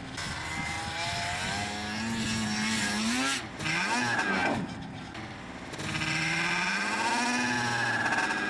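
Two-stroke snowmobile engine revving hard at high throttle, its pitch climbing as the sled speeds toward a jump. Around four seconds in the pitch swoops quickly up and down as it passes close by, then the engine climbs again.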